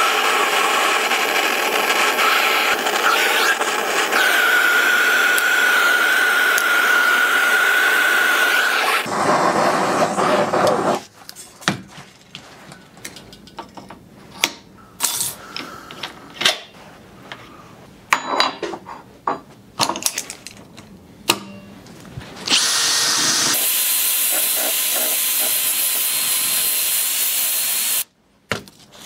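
Handheld propane torch hissing steadily as its flame heats a crankshaft ball bearing; the hiss cuts off about nine seconds in. Then short metallic clicks and knocks as parts are handled, and near the end a second stretch of steady torch hiss that stops suddenly.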